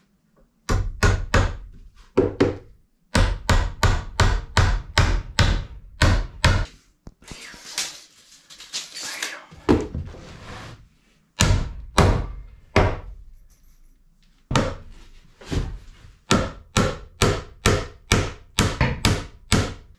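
Hammer blows on a wooden floor frame: runs of sharp strikes, about two to three a second, broken by short pauses, with a scraping, rustling stretch around the middle.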